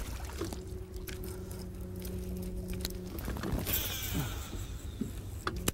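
Bass boat's electric trolling motor humming steadily with a low two-note whine, switched off about three seconds in. A brief hiss follows shortly after, near four seconds.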